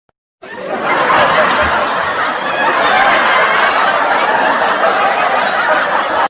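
Laugh-track sound effect: a crowd of people laughing together at a steady level, starting about half a second in and cutting off abruptly at the end.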